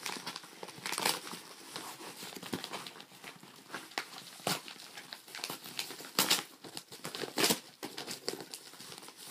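A yellow padded paper mailer envelope being ripped open and crinkled by hand, in irregular bursts of tearing and rustling paper. The loudest rips come about six and seven and a half seconds in.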